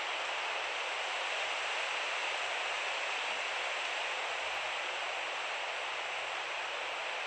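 Steady, even hiss of background noise, unchanging throughout, with most of its energy in the upper middle of the range; no separate pen strokes or page turns stand out above it.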